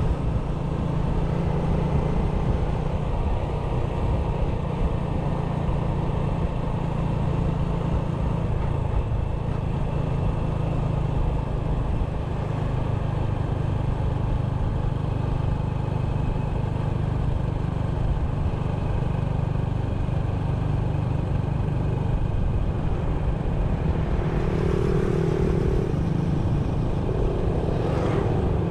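A 97cc motorbike engine running steadily at cruising speed, with road noise. Near the end a higher hum joins in briefly.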